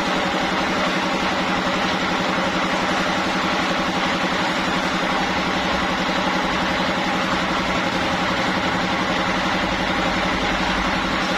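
Sawmill machinery running steadily at a constant speed: a continuous engine-like drone with a fast, even low pulsing.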